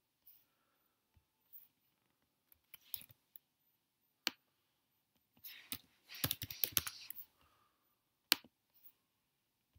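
Sparse single clicks, then a quick run of typing on a computer keyboard about six to seven seconds in, and one more sharp click near the end.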